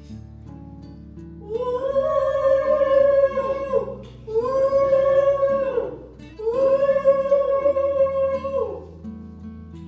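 Background music: a voice humming three long held phrases over acoustic guitar chords.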